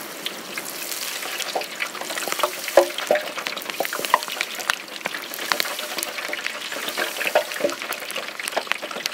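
Potato sticks frying in a deep fryer's oil at 375 °F: a dense sizzle with constant crackling, as moisture boils out of the fries on their second, high-temperature fry.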